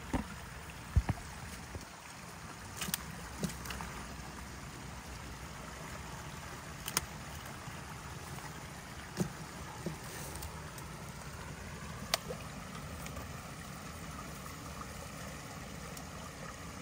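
Steady rush of water through a beaver dam that is being cleared by hand. Scattered sharp knocks and cracks of sticks being pulled from the dam, about eight in all, the loudest about a second in.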